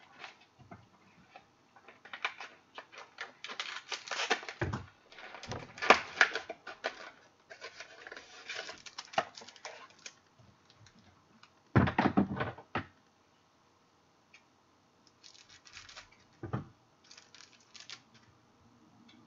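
Football trading cards being handled and sorted: repeated bursts of rustling, sliding and scraping, with a few sharper taps, separated by short quiet gaps.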